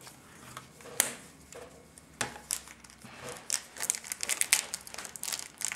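Trading cards handled and set down on a playmat, with a couple of sharp taps, then busy crinkling and rustling of booster-pack packaging that grows denser near the end.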